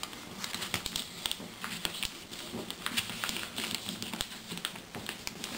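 Sheet of paper rustling and crinkling, with many small clicks and taps, as fingers roll up and crease its folded leading edge against a tabletop to weight the front of a paper flying wing.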